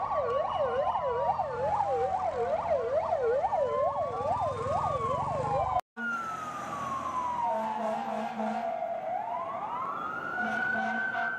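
Fire engine sirens: a fast yelp warbling several times a second over a slower wail, then a single wail that slowly falls and climbs again.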